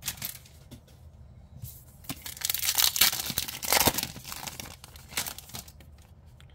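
Foil trading-card booster pack wrapper crinkling and being torn open by hand, a dense crackling tear from about a second and a half in, lasting around three seconds, followed by a few softer rustles as the cards are handled.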